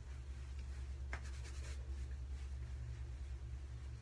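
Hands rubbing and working through thick natural hair, a light scratchy rustling with a short click about a second in, over a steady low hum.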